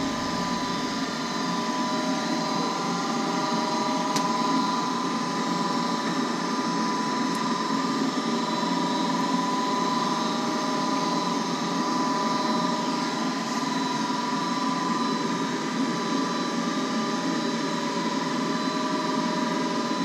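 Goodman gas furnace's draft inducer fan running steadily, a motor hum with a steady whine, with a light click about four seconds in.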